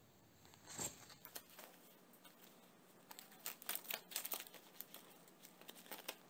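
Handling noise: rubber-coated work gloves rustling and a white plastic strip crinkling as it is wrapped around a steel CO2 cartridge. There is a soft bump just under a second in and a run of louder rustles and clicks in the middle.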